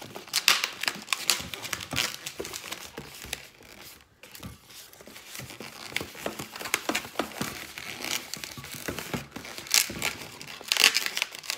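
Long black latex modelling balloons rubbing and squeaking against each other as they are bent and twisted by hand, with dense crackling and short squeaks.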